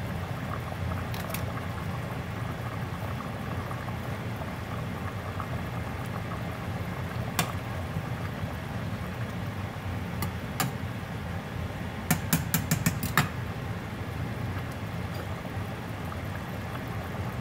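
Stew simmering in a stainless steel pot with a steady low bubbling hiss, as a spoon is stirred through it and knocks against the pot: single clicks now and then, and a quick run of about six taps about twelve seconds in.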